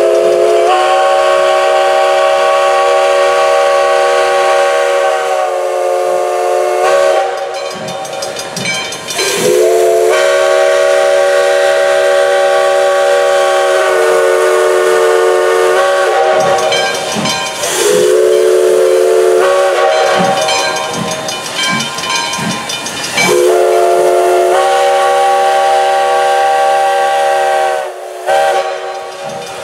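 Steam locomotive whistle sounding a chord of several notes in a series of long blasts with short gaps, over hissing steam: the engine whistling for the grade crossing.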